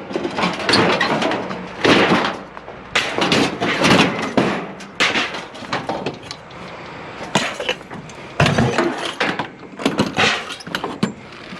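Scrap metal clanking and banging as pieces are pulled off a trailer and thrown down, a string of irregular knocks and clatters.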